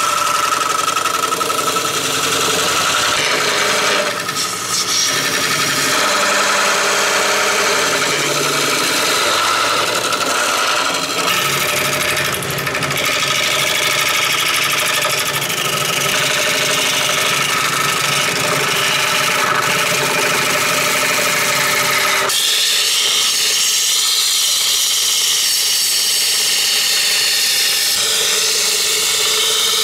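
Woodturning lathe spinning an epoxy-resin and golf-ball blank while a carbide tool cuts inside it: a steady motor hum under scraping cutting noise. The sound changes abruptly twice.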